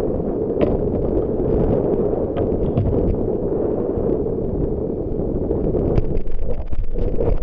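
Strong wind buffeting the microphone over choppy water: a steady, loud rush, with small waves lapping and slapping against the kayak's hull a few times.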